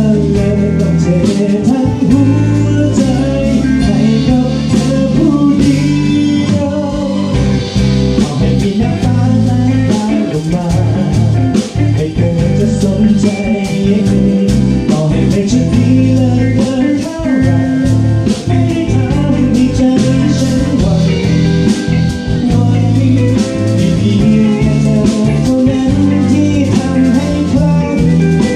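A live band playing a song with electric guitars, bass guitar and drum kit, and a man singing lead.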